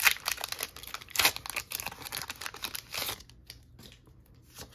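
A foil Pokémon booster pack wrapper being torn open and crinkled: a dense crackle for about three seconds, loudest at the start and about a second in, then thinning to a few light clicks.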